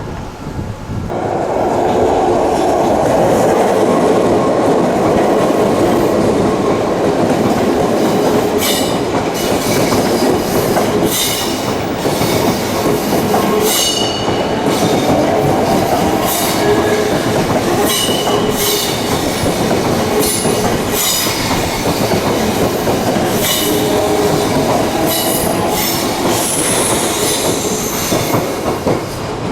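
Odakyu Line electric train passing over the level crossing, its wheels on the rails loud and continuous. High wheel squeals come and go repeatedly from about a third of the way in.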